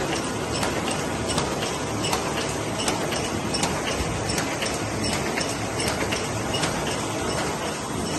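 Model 450B square-bottom paper bag machine running: a steady mechanical din with a sharp click repeating about every three-quarters of a second.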